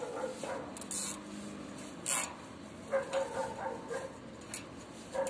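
A dog barking in short bursts, a few barks about three seconds in, with two brief scraping sounds about one and two seconds in.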